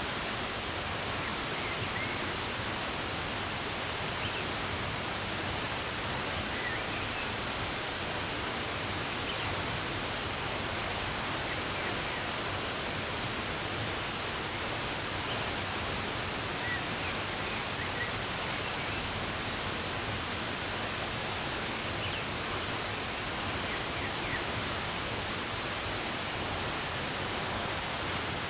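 Steady rushing of running water, an even unbroken wash, with faint, scattered short bird chirps over it.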